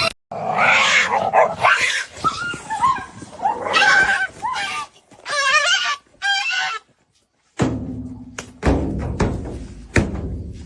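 An animal's cries, bending up and down in pitch for several seconds. After a short silence, a low hum starts with a few sharp knocks and fades toward the end.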